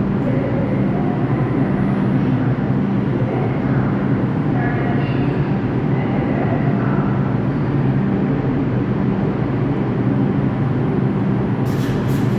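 R142 subway train standing at the station with its equipment humming steadily over a loud rumble. A short burst of hissing and clicking comes near the end.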